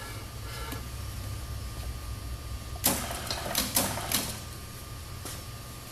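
A few short clicks and scrapes from handling work, bunched together about three to four seconds in, over a steady low hum.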